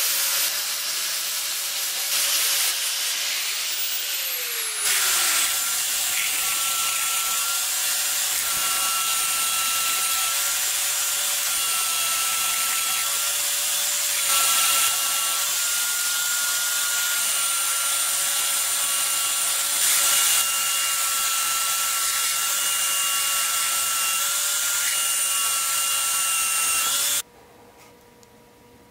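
An angle grinder with a wire wheel brushes a steel axe head and winds down. About five seconds in, a belt sander clamped upside down takes over with a steady whine as the axe head is pressed onto the moving belt. It stops shortly before the end.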